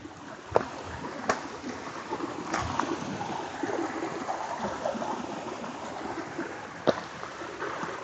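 Running water of a small stream, a steady rushing hiss, with four sharp clicks spread across it.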